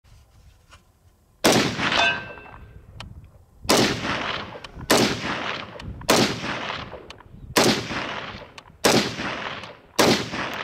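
A DSA Bush Warrior FN FAL rifle in 7.62×51mm NATO fired semi-automatically, about eight shots at a steady pace of roughly one a second, each crack trailing off in an echo. A short metallic ring follows the first shot.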